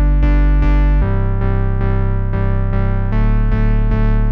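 Background music: synthesizer or electric-piano chords pulsing about three times a second, changing chord about a second in and again about three seconds in.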